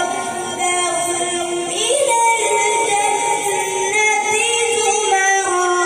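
A boy reciting the Quran in a melodic, sung style through a microphone, holding long notes with ornamented turns and glides in pitch.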